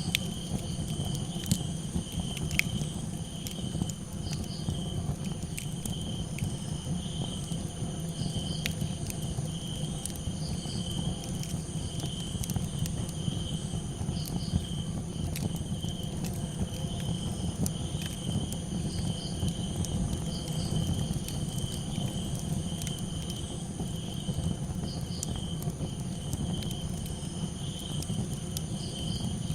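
Crickets chirping in a steady pulsing trill, with other insects droning high above, over a crackling campfire that gives scattered sharp pops and a low steady rumble.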